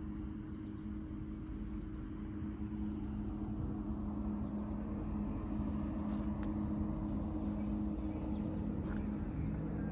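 A steady, unchanging low mechanical hum over a constant low rumble, from machinery running at a distance.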